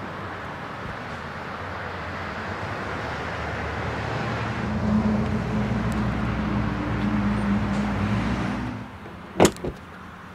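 The Tesla Model S front trunk lid is pushed shut with one sharp thud near the end, followed by a smaller knock. Before that there is steady car and traffic noise, with a nearby vehicle's motor hum building in the middle and dropping away just before the thud.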